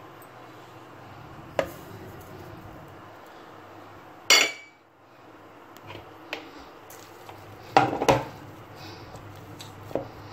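Kitchen utensils and dishes clinking and knocking: about six sharp, separate clinks, the loudest about four seconds in with a brief ring, and a quick pair near eight seconds.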